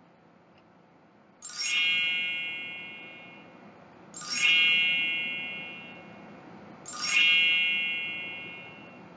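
A bright chime sound effect rings three times, about every two and a half seconds. Each strike rings out and fades slowly. The first comes in about a second and a half in.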